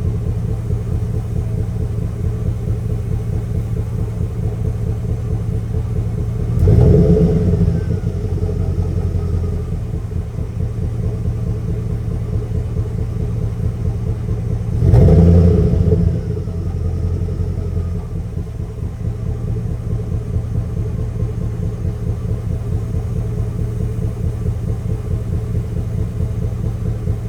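V8 engine of a high-mileage full-size GM van idling with an uneven, lumpy beat, revved briefly twice. The misfire makes it run like a V7, one cylinder not firing.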